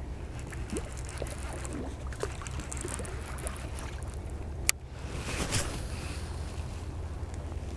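A steady low hum aboard a small fishing boat on the water, with one sharp click about halfway through and a short rushing sound half a second later.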